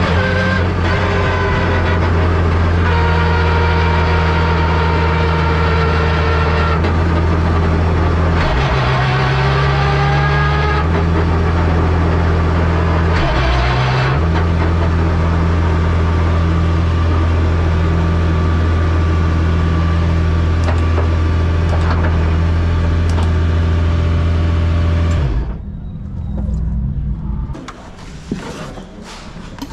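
Porsche 992 GT3 Cup's 4.0-litre flat-six race engine running at low revs in second gear, heard from inside the cockpit, with a few brief dips and rises in pitch. It stops abruptly about 25 seconds in, leaving a few faint knocks.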